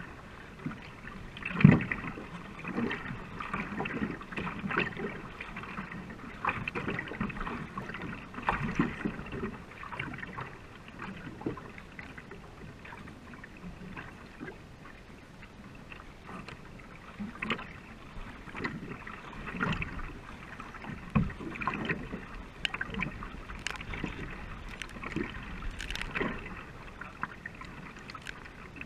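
Racing canoe being paddled on a river: repeated splashing paddle strokes dipping and pulling through the water, over a steady wash of water along the hull.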